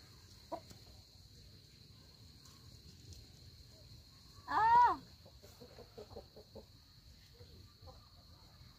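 A chicken calling once, loud and about half a second long, about four and a half seconds in, followed by a run of short, soft clucks.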